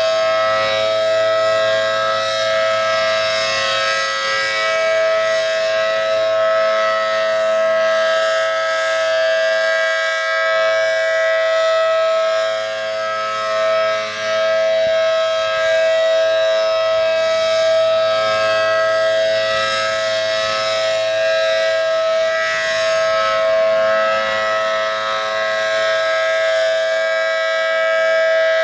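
ACA Allertor 125 rotating outdoor warning siren with a 10/12-port rotor, running at full speed. It holds a steady two-note chord whose loudness swells and fades as the head rotates.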